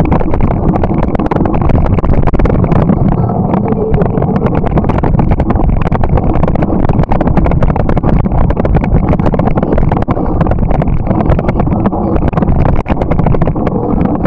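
Loud, steady rush of wind buffeting the microphone of a moving bike, with low road rumble and a fast, uneven rattle of clicks.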